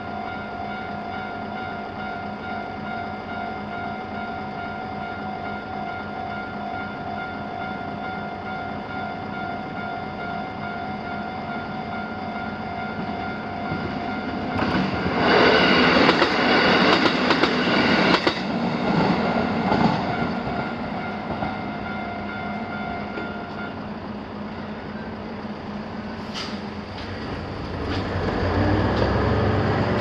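Japanese level-crossing warning bells ringing a steady repeating ding, with one bell ringing a little faster than the other. About fifteen seconds in, an orange-striped JR railcar passes over the crossing with loud clattering wheels for several seconds. The bells stop a few seconds after it has passed, and near the end a road vehicle rumbles across the crossing.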